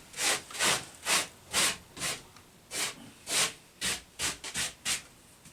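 A hand rubbing and brushing along the freshly sawn edge of a wooden board: about eleven short, irregular scraping strokes.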